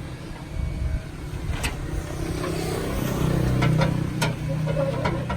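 A motor vehicle engine running, swelling in level about midway and easing off again, with a few sharp clicks and knocks in the second half.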